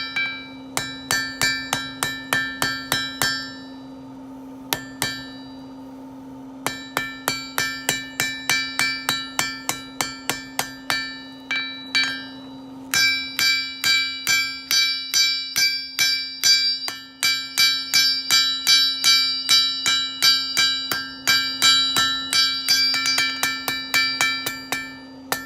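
Blacksmith's hammer striking hot steel on an anvil at about three blows a second, each blow followed by a clear ringing of the anvil, with a short pause after a few seconds and heavier blows in the second half. A steady low hum runs underneath.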